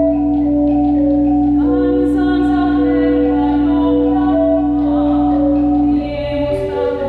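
Church organ playing sustained chords over a long-held low note, joined about one and a half seconds in by a woman singing. The held low note stops about six seconds in.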